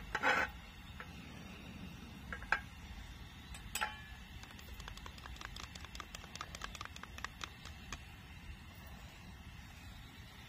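A few sharp knocks, then a run of light, rapid clicks lasting a few seconds, over a low steady background.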